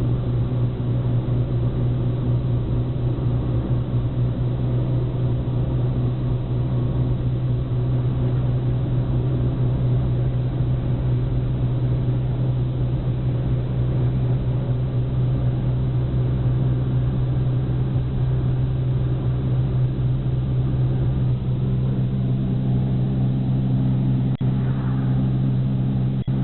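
Steady engine and road noise of a moving car heard from inside the cabin, a constant low hum with one brief click near the end.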